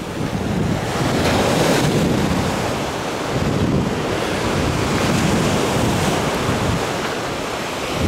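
Small sea waves washing onto the shore, with wind buffeting the microphone.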